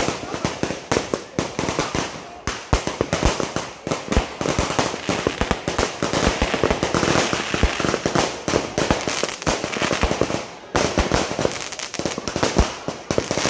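Fireworks going off: a dense, continuous run of rapid bangs and crackling pops from shells bursting overhead, with a brief break just before eleven seconds in.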